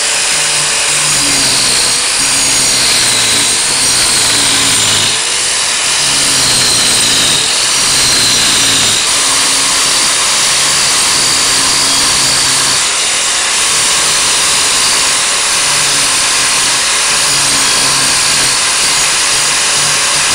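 Angle grinder fitted with a carbide wood-grinding disc running continuously and cutting into a mahogany table leg, hogging out the bulk of the wood for a spiral groove. It makes a loud, steady grinding whine whose pitch shifts up and down as the disc bites into the wood and eases off.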